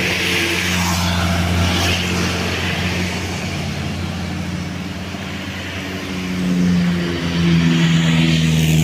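Heavy road vehicle's engine running under load as it climbs past, a steady low drone that grows louder in the last few seconds.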